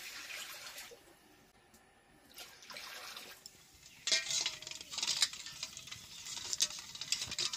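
Water splashing and sloshing in a steel bowl as peeled boiled eggs are rubbed and turned by hand, with light clicks of eggs against the bowl, starting about halfway through.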